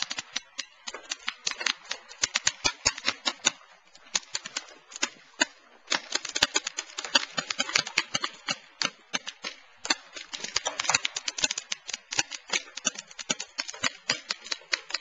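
Paintball markers firing in rapid, irregular volleys of sharp pops, several a second, with brief lulls.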